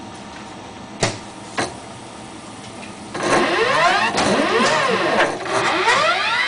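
Selective solder robot's drive motors whining, the pitch sweeping up and down in arcs as the motors speed up and slow down, starting about three seconds in. Two sharp clicks come before it, about a second and a second and a half in.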